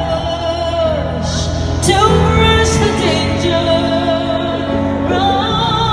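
A woman singing a slow ballad live over piano accompaniment, heard through a large arena's sound system with long notes that waver in pitch.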